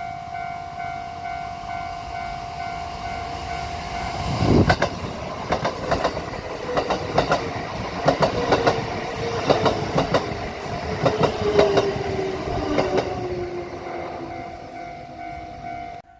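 A level-crossing warning bell rings with a steady tone. About four seconds in, a Kintetsu Osaka Line train passes over the rail joints, its wheels striking them in quick groups of sharp clacks for about nine seconds, under a whine that falls slowly in pitch. The bell's tone comes back as the train moves away.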